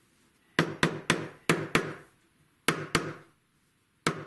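Small wooden mallet tapping through a cloth pad onto a flintlock pistol's wooden stock, driving a tight-fitting part home: about eight sharp knocks in quick bunches of two or three.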